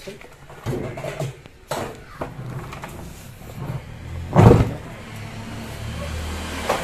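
Knocks and scrapes of a top-load washing machine's parts being handled and pulled out during disassembly, with one heavy thump about four and a half seconds in. A low steady hum follows the thump.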